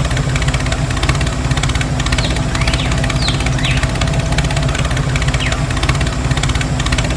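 Tractor engine idling steadily with a fast, even chug, a few short high chirps over it in the middle.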